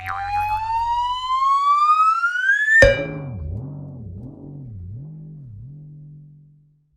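Cartoon 'tuitt twing' sound effect: a whistle slides steadily upward for nearly three seconds and ends in a sharp hit, followed by a low wobbling boing-like twang that wavers about four times and fades away.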